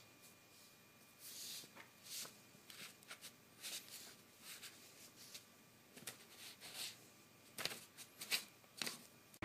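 Faint, irregular rustling and crinkling of paper sheets under a kitten's paws as it pats and steps on them, with a few sharper crinkles near the end.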